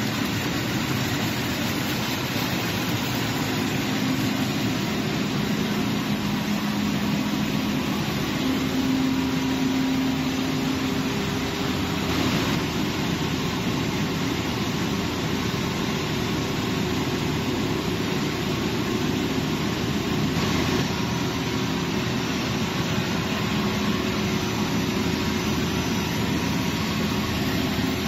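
Steady din of paper-pulp processing machinery running, a constant rushing noise with a low hum from motors.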